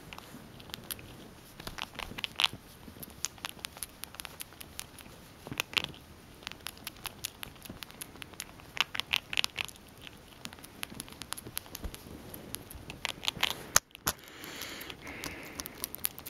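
Grey squirrel chewing a hard treat held in its paws, a rapid, irregular run of small crisp crunches and clicks coming in clusters. A soft rustle comes near the end.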